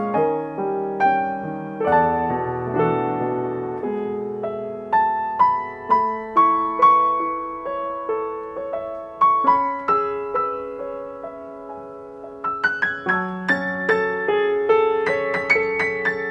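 Kawai GX7 grand piano played solo: a slow melody over sustained chords, each note struck and ringing away. The playing thins and quietens about two-thirds of the way in, then picks up with a quicker run of higher notes.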